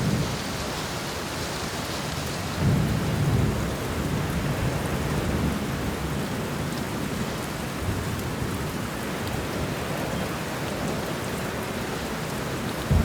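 Steady heavy rain with rolling thunder: a low rumble swells up about two and a half seconds in and another begins right at the end.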